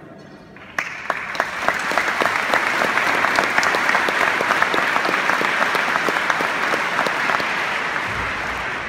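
Audience applauding, starting sharply about a second in, with single loud claps from someone close by standing out early on; the applause eases off near the end.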